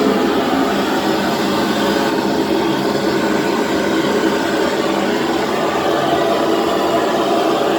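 Gas brazing torch flame burning with a steady rushing hiss while heating copper pipe for silver brazing.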